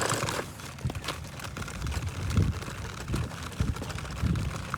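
Footsteps while walking, a series of dull low thumps about every half second to second over a steady rustling noise.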